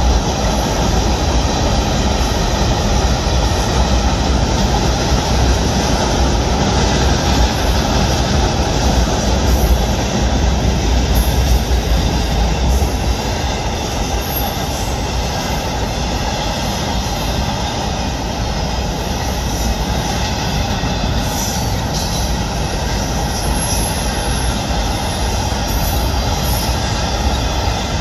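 Florida East Coast Railway freight train of tank cars rolling across a railway trestle, a steady rumble of wheels on rail. The sound eases slightly about halfway through as the last cars clear the bridge.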